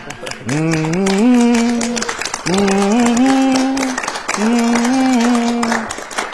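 A single voice humming a song's tune for others to guess, in three held phrases of about a second and a half each, each rising at its start and then holding steady.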